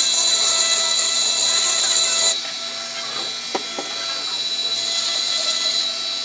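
Flexible-shaft rotary tool with a small engraving bit, its motor whining steadily while the bit grinds into a glass bottle with a high, hissing scratch. The grinding drops away a little over two seconds in while the motor keeps running, then comes back faintly near the end.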